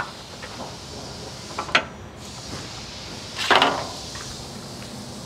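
Steel smoker door being unlatched by its stainless handle and swung open: a sharp click at the start, a couple of short knocks, then a louder metal clatter about three and a half seconds in.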